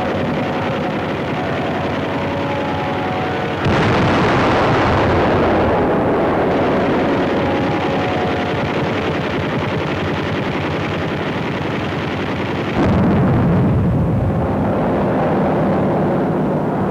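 Dense, continuous noise of explosions and gunfire from an old film sound-effects track. It jumps abruptly louder about 4 seconds in and again about 13 seconds in.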